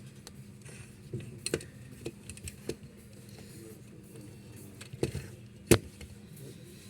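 Scattered small clicks and knocks of hard parts being handled, with one sharp knock a little before the end, over a faint steady hum.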